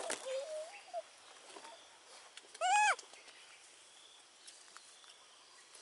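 Baby macaque cooing: a wavering call that trails off about a second in, then one short, loud coo that rises and falls in pitch near the middle.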